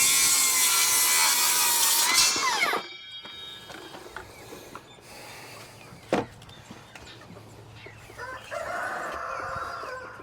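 Rooster crowing: one long, loud crow that rises, holds and drops off at about three seconds. A single sharp knock comes about six seconds in, and a quieter second call is heard near the end.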